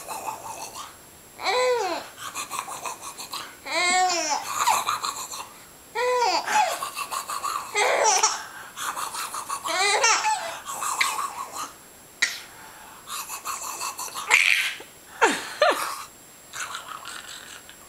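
Five-month-old baby squealing in short high calls that rise and fall in pitch, repeated every couple of seconds, with laughter in between.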